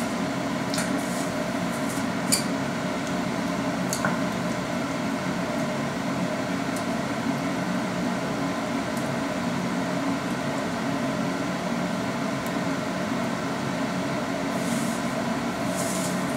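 Steady mechanical hum of a running appliance or fan, with a few light clicks and taps now and then.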